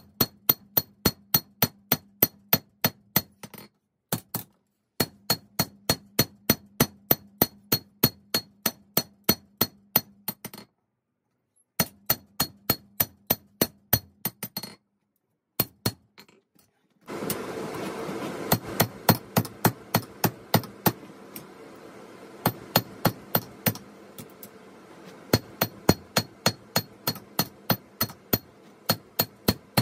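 Hammer blows ringing on steel at an anvil, about four a second, in runs broken by short pauses while forging a 5160 spring-steel blade. From just past halfway a steady rushing noise runs under the blows.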